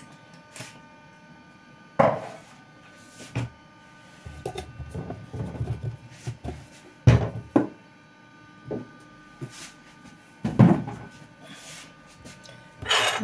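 Kitchen containers being handled and set down on a counter: several sharp knocks, about two seconds in, again around seven seconds and near the end, with a spell of rattling and clatter in between.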